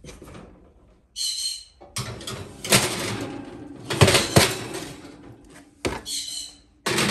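Metal baking sheet scraping and clanking against the wire rack of an electric oven as the tray is pushed in. There are a few sharp clanks about four seconds in.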